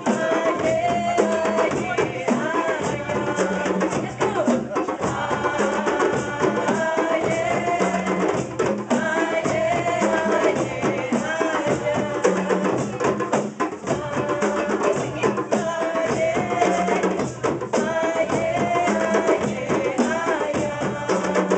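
A woman's voice sings a chant through a microphone and PA over a group of djembe drums playing a steady repeating rhythm.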